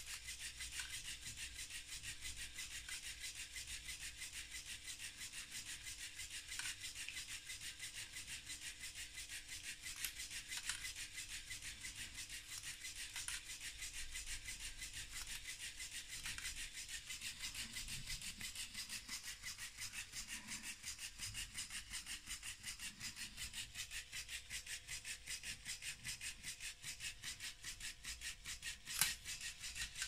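Small electric air compressor for the LEGO pneumatics running continuously, giving a fast, even, rasping pulse of pump strokes. There is a single sharp click near the end.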